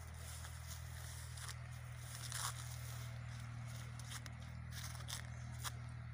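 A dog chewing and tearing at a monkey carcass: irregular clicks and tearing noises, with louder ones about two and a half seconds in and near the end, over a steady low hum.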